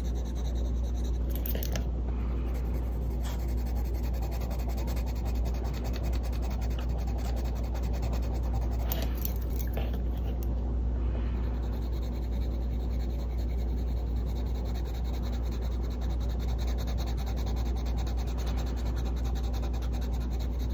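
Caran d'Ache Luminance coloured pencil scratching on paper in steady back-and-forth strokes as a colour swatch is filled in, over a steady low hum.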